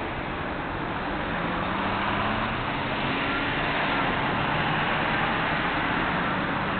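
Road traffic going through an intersection: steady tyre and engine noise from passing cars and a truck towing a trailer, growing a little louder about two seconds in. It is picked up by a security camera's microphone, which sounds thin and hissy.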